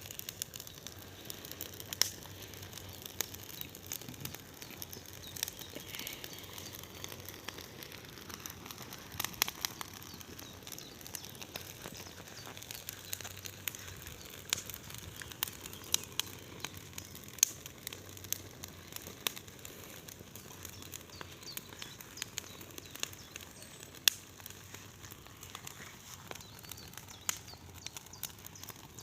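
Large bonfire burning, crackling with irregular sharp pops over a steady hiss of flames.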